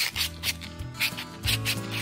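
Background music with drum hits and a bass line, starting at once.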